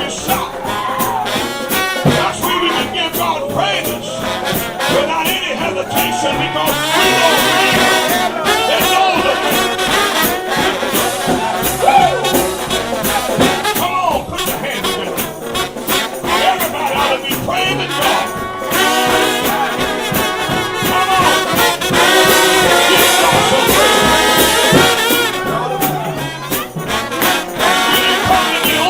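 Trombone-led brass shout band playing loudly in close harmony, with sliding notes throughout.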